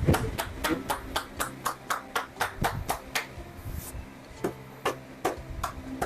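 Percussive tapping on the body during chiropractic treatment: a run of sharp, even taps, about four a second, thinning to about one every half second after some three seconds, with a brief hiss in between.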